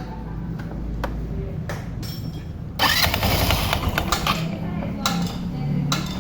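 Kymco Agility Fusion 125 scooter engine running with a harsh mechanical noise, rising to a louder, harsher burst about three seconds in that lasts about a second. The owner calls it an ugly, horrible sound and traces it to the CVT drive (belt and clutch assembly).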